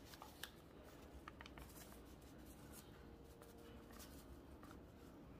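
Near silence with faint rustling and a few light ticks: dry chicken breading mix pouring from a plastic bag into a wooden bowl.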